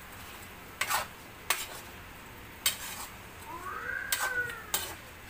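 A metal spatula clinks and scrapes against a metal frying pan about five times as chicken pieces are stirred over a gas flame, with a faint sizzle underneath. Near the end a short high cry rises and falls once.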